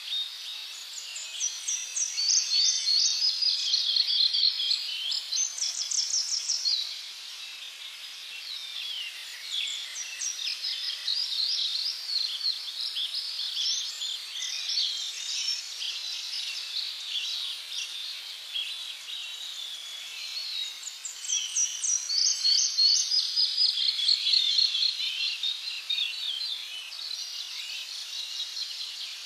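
Songbirds singing in fast, repeated chirp series, with two louder bouts early and late and quieter chirping between, over a steady high background hiss.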